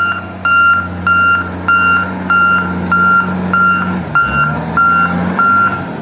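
Motor grader's reversing alarm beeping, one high tone repeated about one and a half times a second, over the steady drone of its diesel engine, which drops in pitch about four seconds in.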